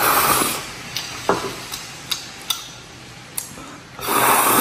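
A person slurping starch noodles from a bowl, twice: once at the start and again about four seconds in, with a few light clicks of chopsticks against the porcelain bowl in between.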